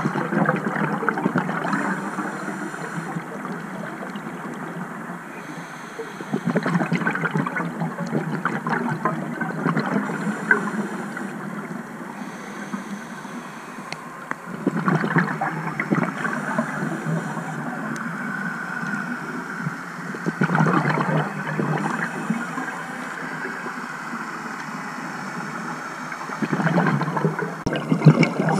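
Scuba regulator breathing heard underwater: bursts of exhaled bubbles gurgling and crackling about every six seconds, with a quieter hiss between them.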